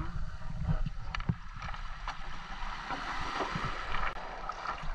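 Shallow seawater sloshing and washing over beach pebbles as someone wades, with wind buffeting the microphone.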